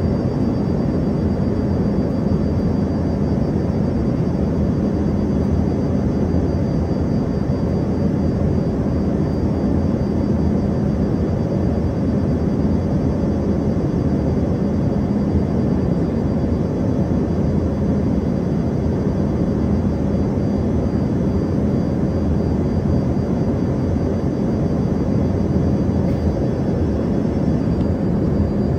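Steady cabin noise inside an Embraer ERJ-145 regional jet with its rear-mounted Rolls-Royce AE 3007 turbofans running: an even, dense drone with a low hum and a faint high whine.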